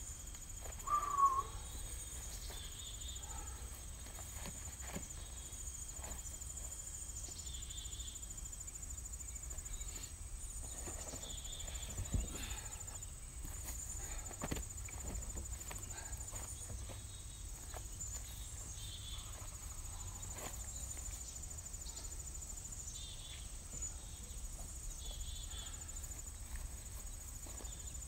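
A steady high-pitched insect chirring fills the yard, with scattered soft knocks and thuds of rubber tires and a maple wood block being shifted by hand. A brief chirp comes about a second in.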